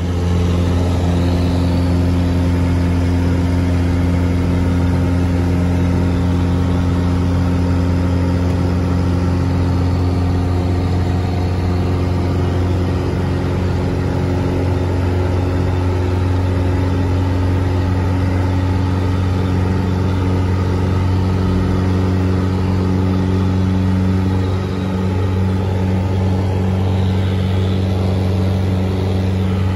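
Cessna 177 Cardinal's four-cylinder piston engine and propeller running steadily at takeoff power, heard loud from inside the cabin during the takeoff roll and climb-out.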